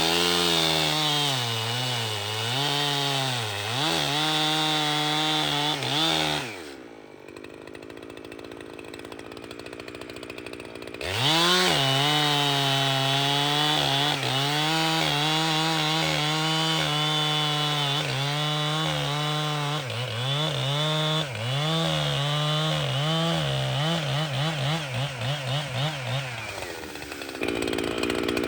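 Echo CS-7310 two-stroke chainsaw cutting wood, its engine pitch sagging under load and picking back up through the cut. About seven seconds in it drops to a low idle for about four seconds, then revs up and cuts again, with a quick pulsing rise and fall of the engine near the end.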